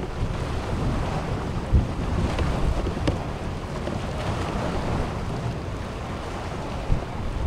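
Wind buffeting the microphone in low gusts over a steady rushing noise, with brief low thumps about two seconds in and near the end.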